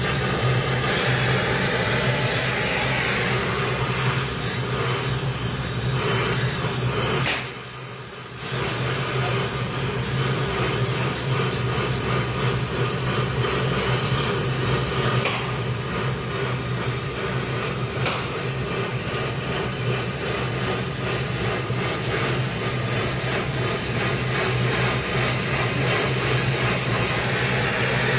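Oxy-fuel gas welding torch burning with a steady hissing roar as it heats and welds the end of a steel pipe, dropping away briefly about seven seconds in.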